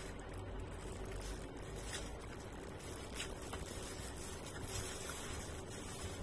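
Eating sounds: chewing, with a few brief crackles from a disposable plastic glove handling food in a styrofoam box, over a steady low hum.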